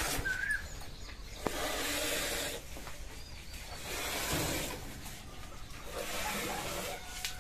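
Milk squirting by hand from a Gir cow's teats into a steel pail of frothy milk: a hissing spray that swells and fades about three times.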